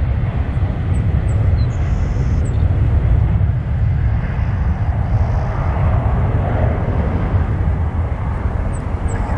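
Twin turbofan engines of an Embraer E175 regional jet at takeoff thrust as it lifts off and climbs away: a steady, loud low rumble with a broad roar above it that swells a little partway through.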